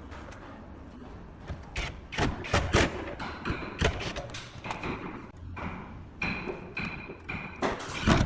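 Irregular knocks and thumps on wood from kitchen cabinet installation work, several in quick succession, a few in the second half with a short high ring.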